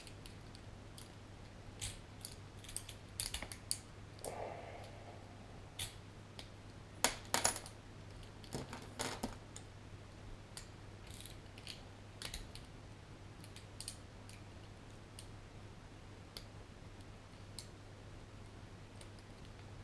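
Metal lock picks and a tension wrench working inside a commercial-grade Master Lock: irregular small metallic clicks and scrapes, with a few sharper clicks about seven seconds in.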